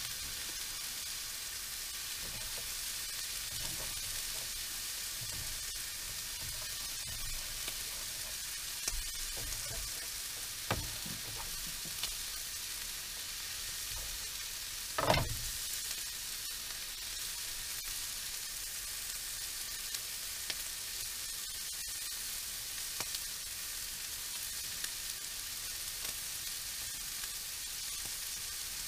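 Meat and onions sizzling in a nonstick frying pan on a single-burner butane camp stove, a steady hiss. A few brief knocks stand out, the loudest about halfway through.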